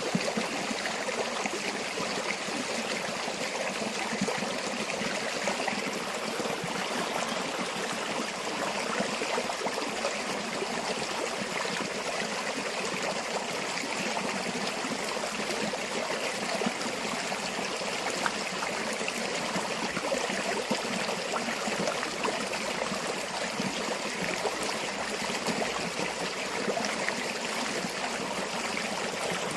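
A river or stream running steadily, a continuous babble of flowing water with small splashes and trickles throughout.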